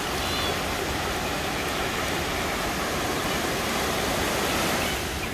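Ocean surf washing in and breaking along the shore: a steady rushing hiss.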